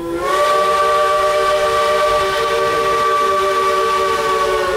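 Steam locomotive whistle blowing one long blast of several notes sounding together, sliding up slightly in pitch as it opens and trailing off at the end, heard from a passenger car of the train.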